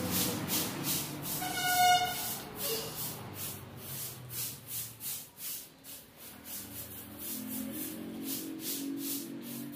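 Short-handled broom sweeping a bare concrete floor in quick rhythmic scratchy strokes, a few a second. A brief loud pitched squeal or chirp cuts in about two seconds in.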